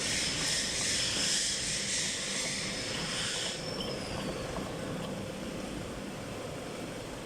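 Hot-air plastic welding gun blowing with a loud steady hiss, switched off about three and a half seconds in, its blower whine falling as it spins down. A steady machine hum runs underneath.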